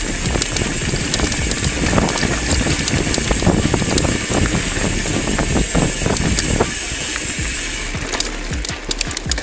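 Mountain bike rolling fast over a gravel road: steady tyre crunch and wind noise, with a dense clatter of sharp clicks and rattles from the bike. The low rumble eases from about seven seconds in, while the clicks go on.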